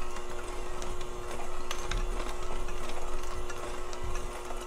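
Electric hand mixer running at a steady speed with a constant motor hum, its beaters working the last of the flour mixture into a thick batter in a glass bowl.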